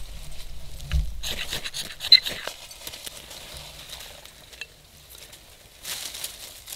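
Ferrocerium rod scraped with a striker, a couple of quick rasping strokes with a sharp click about two seconds in, throwing sparks that light a tuft of dryer lint. A brief rustle near the end.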